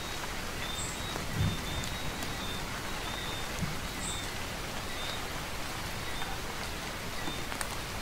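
Steady rainfall, with a soft low thud about a second and a half in and a fainter one a couple of seconds later.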